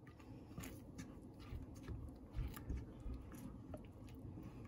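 Red silicone spatula stirring a thick, creamy white sauce in a nonstick pan: faint, irregular soft scrapes and wet squelches, with a few light ticks.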